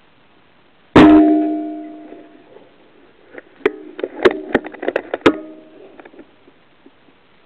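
A single sharp rifle shot about a second in, followed by a metallic ring that dies away over about a second. Then, from about three seconds on, comes a quick run of clicks and knocks with short ringing tones.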